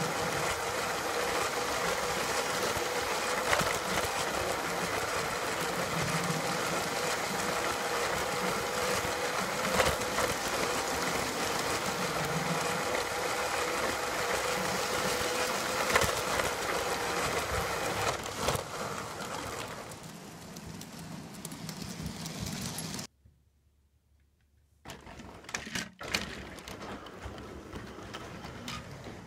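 G scale model train running on its track: a steady motor whine and wheel rumble with a few sharp clicks. About two-thirds of the way through the sound falls away, cuts out for a couple of seconds, then comes back as a quieter rumble.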